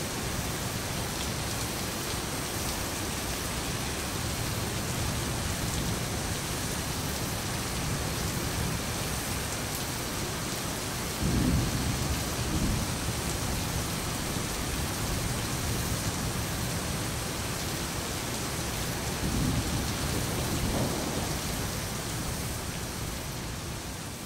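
Steady hiss like rain, with two low rumbles, one about halfway through and one near the end, fading out at the very end.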